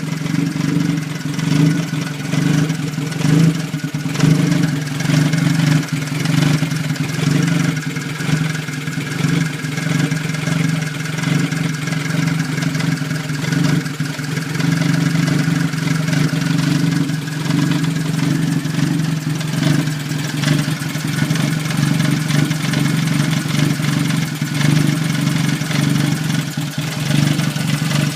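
1989 Toyota Tercel's 3E four-cylinder engine idling roughly, its level wavering unevenly: the rough idle is the fault being shown.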